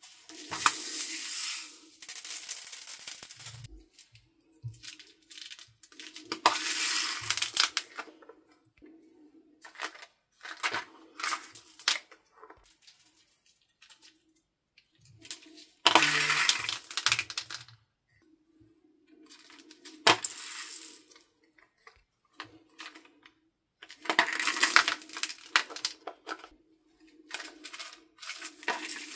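Small beads and sequins poured from heart-shaped plastic containers onto a bowl of slime, clattering and rattling in four bursts of a second or two. Single clicks and taps come between the pours.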